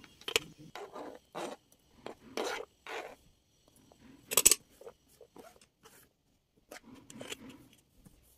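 Kitchen knife chopping onion on a chopping board: a run of irregular cutting and scraping strokes, the loudest a little past the middle.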